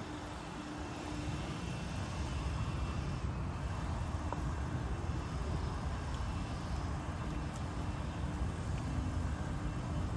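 Steady low outdoor rumble, with a faint hum coming and going through it.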